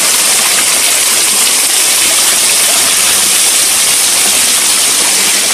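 Small waterfall pouring steadily off a rock ledge onto a bather and into a shallow rocky pool: a loud, steady, hissing rush of falling water.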